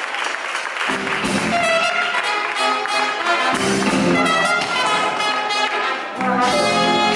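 Applause dying away as a live band strikes up about a second in: trumpet and trombone play the melody of an intro over keyboards, bass and drums.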